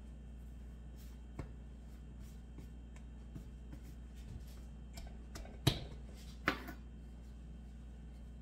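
Hands handling dough on a floured wooden countertop, with small ticks, then two sharp knocks on the wood a little under a second apart as the dough ball and the wooden rolling pin are set down. A steady low hum runs underneath.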